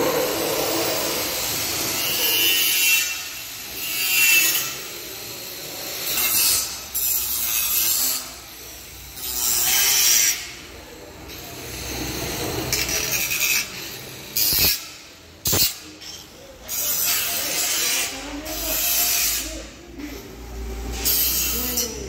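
Power tools at work in a bus-body workshop: repeated short bursts of sanding or cutting noise, each half a second to a second long, with two sharp knocks about halfway through.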